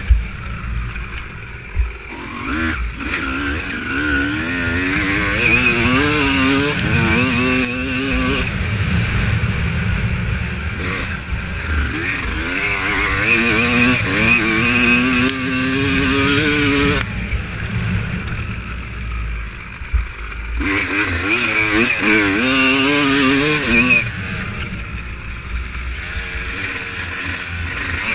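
Honda CR250 motocross bike's single-cylinder two-stroke engine being ridden, its revs climbing and falling again and again, with the throttle shutting off about every eight seconds. A steady low rumble runs underneath.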